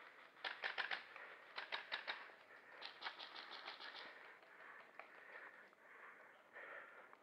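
Three short bursts of airsoft gunfire, fairly faint, each a run of rapid sharp clicks at about eight to ten shots a second, in the first four seconds.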